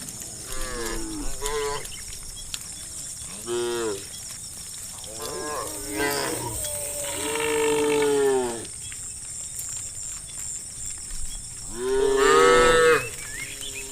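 Cattle mooing, a string of separate calls from several cows, some short and some drawn out, the loudest near the end.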